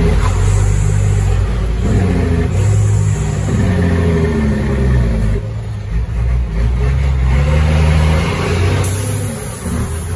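Caterpillar 3306 diesel in a 1999 Ford Sterling truck pulling hard. The engine note climbs, then drops back, five or six times in a row, like a truck working up through its gears.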